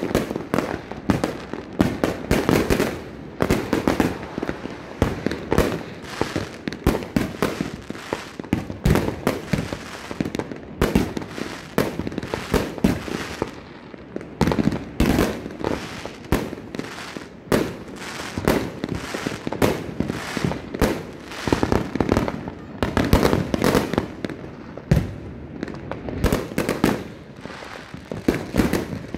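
Fireworks going off in a dense, continuous barrage: many sharp bangs and crackles each second, easing briefly a couple of times before picking up again.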